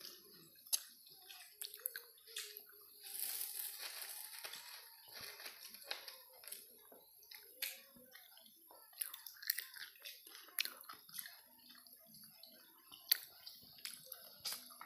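Close-up eating sounds: wet chewing and lip-smacking while buras rice cake is eaten by hand, with scattered small clicks and the rustle of the banana-leaf wrapper as pieces are torn off.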